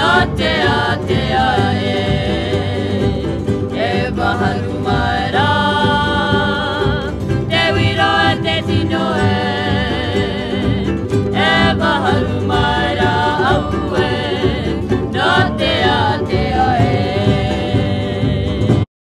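Music with singing voices over a full accompaniment; it cuts off abruptly near the end.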